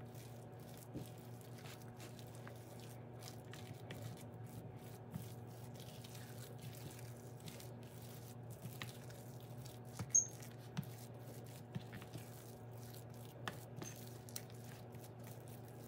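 Faint, irregular soft clicks and taps of a utensil working mashed potato and melted mozzarella together in a bowl, a few sharper ticks about two-thirds of the way in, over a steady low electrical hum.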